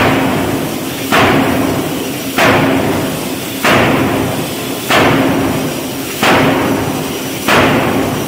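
Giant steam forging hammer striking red-hot steel in a steady rhythm, about seven heavy blows, one every second and a quarter. Each blow is sharp and rings away before the next, over a steady low hum.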